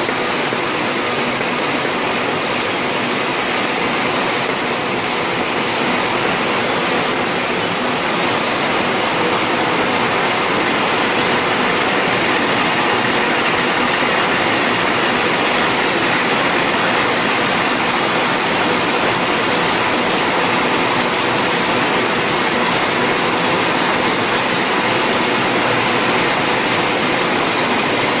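EMS-UT70 automatic express-mail envelope forming machine running: a loud, steady, dense machine noise from its rollers and drive, with no distinct beat.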